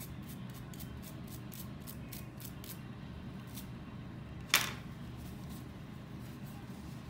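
Small toothbrush scrubbing the rubber grip of a Samyang 85mm f/1.4 manual lens in quick short strokes, about five a second, thinning out after three or four seconds. The scrubbing removes white bloom from the rubber. One sharp click, the loudest sound, comes a little past halfway.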